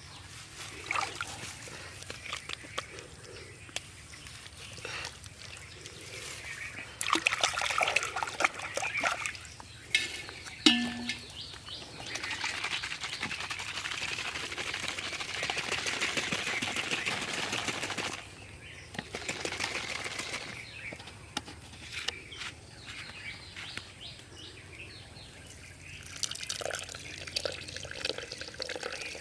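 Water splashing and pouring in irregular bursts, with one long stretch of steady splashing in the middle.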